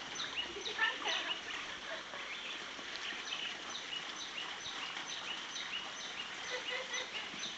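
Birds calling: a steady run of short, high chirps, each falling quickly in pitch, about two a second.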